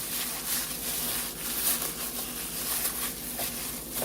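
A raw ground chicken meatball mixture (breadcrumbs, egg, chopped vegetables and buffalo sauce) being mixed together in a bowl, making irregular soft mixing noises over a steady low hum.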